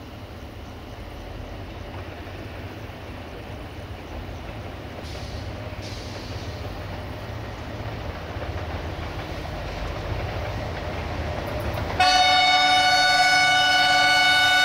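Approaching diesel locomotive, its low engine rumble growing steadily louder; about twelve seconds in its horn sounds, a loud, long multi-tone blast.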